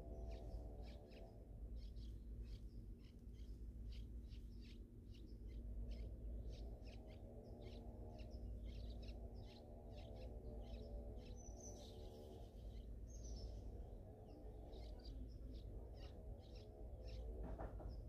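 Nestling songbirds begging: a rapid run of short, high chirps, several a second, from chicks gaping for food in the nest. Beneath them is a low, wavering hum.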